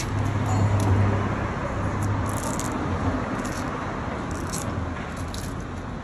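Fresh bamboo shoots being peeled by hand: a few short, crisp rustling tears of the sheaths over a steady low hum and street background noise.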